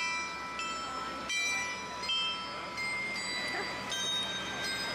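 Chiming, bell-like music of held notes that change in steps, with the open trolley train's running noise underneath.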